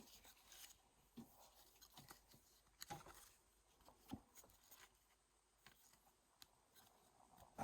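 Faint scattered taps and rustles of hockey trading cards being handled and sorted, with a few soft clicks at about three and four seconds in.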